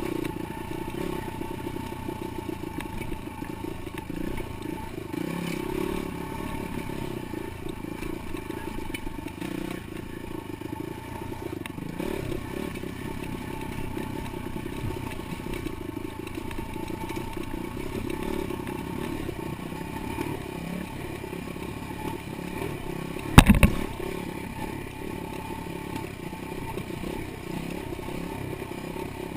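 Dirt bike engine running steadily, with clattering. About two-thirds of the way through there is one sharp, loud knock.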